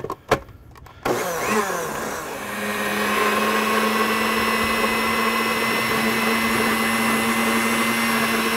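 Two sharp clicks, then a countertop blender with a glass jar starts about a second in, spins up and runs steadily, puréeing fresh parsley, cilantro, garlic and vinegar into chimichurri sauce.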